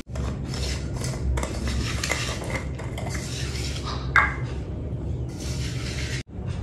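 Hands mixing and rubbing a crumbly sattu filling in a steel bowl, with irregular scraping and light knocks against the metal and one sharper knock about four seconds in.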